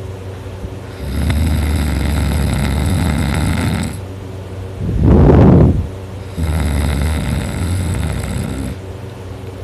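A person snoring very loudly in sleep: two long snores of about three seconds each, with a shorter, louder breath between them.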